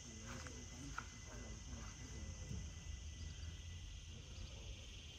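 Faint, steady chirring of insects, with distant voices faintly heard.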